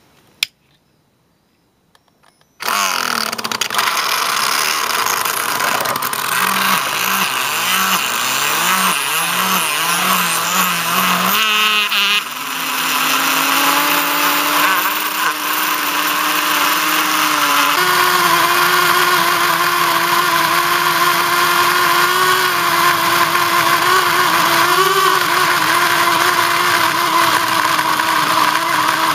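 Small electric motor of a radio-controlled model car whining at full throttle while its tyres spin on asphalt, the car held in place by a chain in a burnout. It starts suddenly about two and a half seconds in after a brief click, and its pitch steps up about twelve and again about eighteen seconds in.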